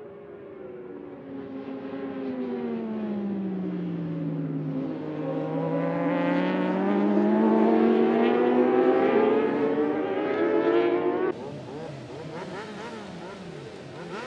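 Daytona SportBike race motorcycles at high revs: the engine pitch falls as the bikes slow for a corner, then climbs steadily as they accelerate out, getting louder. About three-quarters of the way through it cuts to a pack of bikes on the start grid revving their engines, the pitch jumping up and down.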